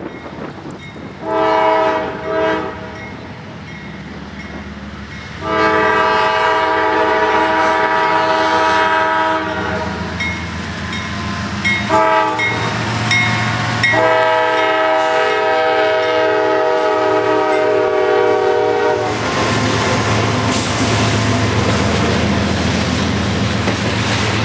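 CSX GE diesel locomotive's air horn blowing a sequence: two short blasts, then a long blast, a short one and another long one as the train approaches. After the last blast the locomotive and its double-stack container cars rumble past close by.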